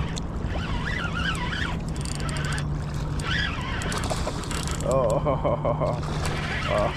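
Geese honking about five seconds in and again near the end, over wind and a steady low hum, with higher wavering bird calls in the first few seconds.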